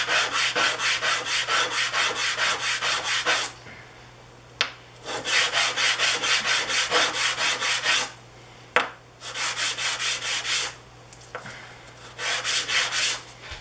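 Small wooden segments rubbed back and forth by hand on sandpaper: four runs of quick, even scraping strokes, about four or five a second, with short pauses between them. There is a sharp click in two of the pauses, and a steady low hum underneath.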